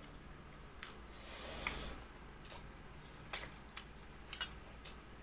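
Close-up eating sounds from a clip-on microphone: a hissing slurp of spicy instant noodles lasting most of a second about a second in, then a few sharp mouth clicks and smacks while chewing, the loudest just past three seconds in.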